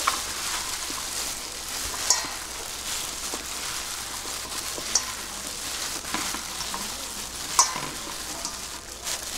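Hands in thin plastic gloves mixing chicken laab in a stainless steel bowl: a steady crinkling rustle of gloves and food, with a few sharp clicks against the bowl.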